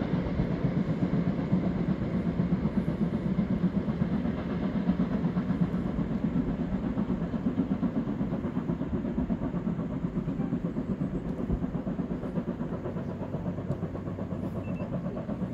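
Steam locomotive 50 3616-5, a German class 50 2-10-0, working a train with a rapid, even beat of exhaust chuffs. The sound stays steady and eases off slightly near the end.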